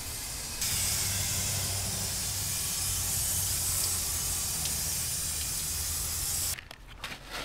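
Water spraying from a shower-head watering wand on a garden hose onto trays of gravel-topped seedlings: a steady hiss that gets louder about half a second in and cuts off near the end.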